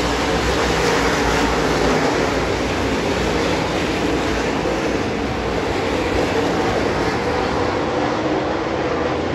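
A pack of dirt-track late model race cars running laps, many engines at once in a loud, steady din.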